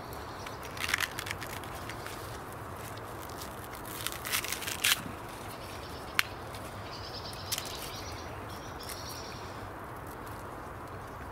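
Miniature sweet corn being husked by hand: the dry husks crackle and tear in short bursts about a second in and again around four to five seconds in, with one sharp snap about six seconds in. Faint bird chirps sound later, over a steady outdoor background.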